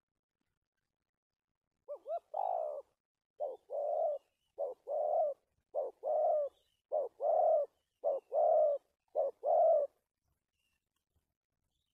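Spotted dove cooing: a run of seven two-part coos, each a short note followed by a longer one, repeated a little over a second apart, starting about two seconds in and stopping about two seconds before the end.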